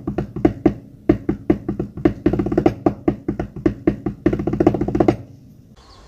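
A drum played in a quick, uneven rhythm of sharp pitched strikes, stopping about five seconds in; faint outdoor background noise follows.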